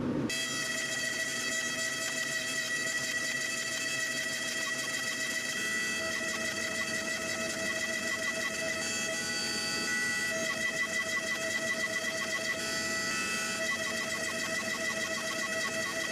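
Hydraulic forging press running, its pump giving a steady high whine with evenly spaced overtones while red-hot steel is squeezed between the dies; the tone shifts slightly now and then as the press works.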